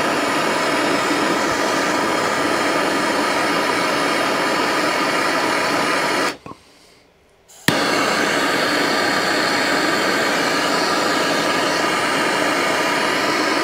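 Handheld MAPP gas torch burning with a loud, steady hiss. About six seconds in the flame cuts out for about a second, then comes back on with a sharp click and burns steadily again.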